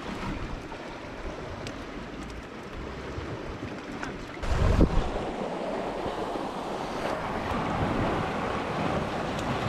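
Sea washing against a rocky shore, with wind buffeting the microphone. A sudden loud low buffet comes near the middle, then a steadier, denser wash of water.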